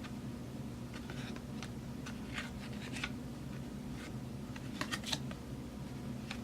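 Football trading cards being handled: a scatter of short, soft slides and rustles, a few in a row about a second in and a couple more about five seconds in, over a low steady hum.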